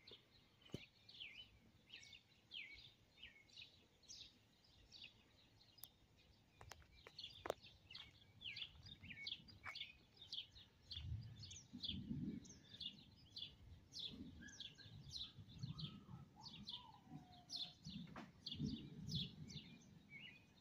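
Faint outdoor birdsong: many birds giving short, quick chirps over and over. In the second half come several low, muffled rumbles.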